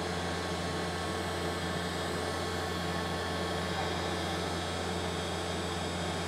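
Ryobi heat gun running, its fan motor giving a steady hum and rush of air as it blows hot air onto heat-shrink tubing.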